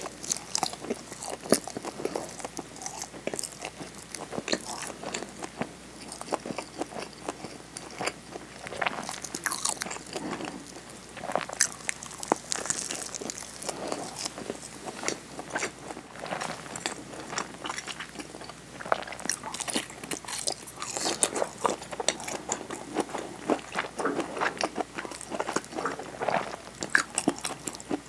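Close-miked eating of a nori-wrapped rice ball (onigiri): bites and chewing with many small, irregular crunches and crackles of the seaweed sheet.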